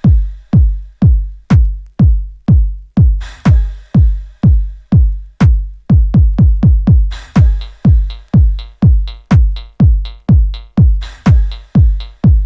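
Techno record played on a Technics SL1200 MK2 turntable through an Ortofon Concorde DJ cartridge. A steady four-on-the-floor kick drum beats about twice a second, with a cymbal crash every two bars, and a quick ticking hi-hat pattern joins about six seconds in.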